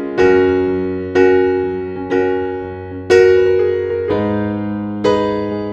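Background music: slow, gentle piano chords, struck about once a second and each left to ring and fade.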